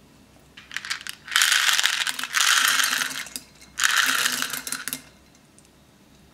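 Small beads poured in a stream into a glass bowl of water, a dense rattling patter in two pours: a longer one from about a second and a half in, and a shorter one from about four seconds in.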